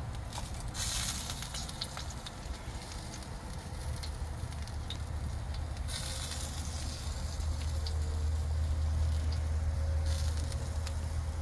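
Fire crackling and sizzling in a 55-gallon-drum barbecue smoker, with scattered sharp pops over a steady hiss. A low rumble underneath grows louder over the second half.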